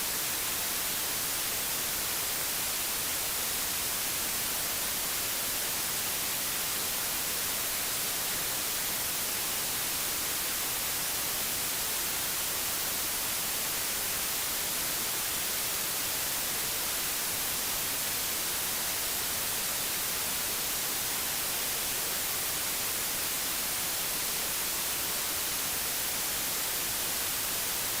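Digitally generated pure white noise: a steady, even hiss that never changes.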